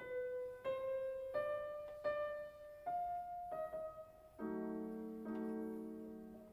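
Background piano music: slow single notes one after another, then held chords from about four and a half seconds in.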